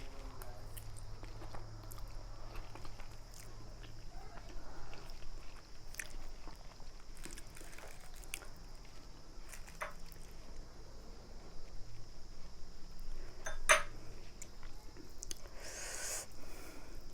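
A person chewing and eating spicy chilli noodles: soft, scattered mouth clicks and chewing, with one sharper click about three-quarters in and a short noisy rush near the end, over a steady low room hum.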